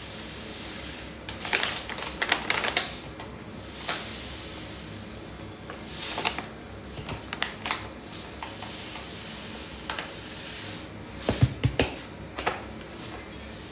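Clusters of light clicks and knocks from hands handling things at a kitchen counter, with a few heavier thuds about eleven seconds in, over a steady background hiss.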